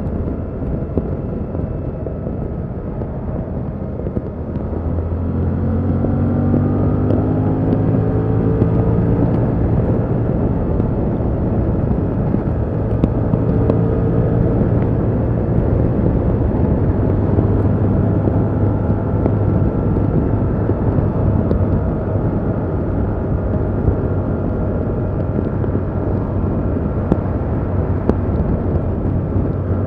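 Stock Yamaha MT-07's 689 cc 270° parallel-twin engine on the move. About five seconds in it gets louder and the revs rise as it accelerates, then it runs steadily at an even pitch.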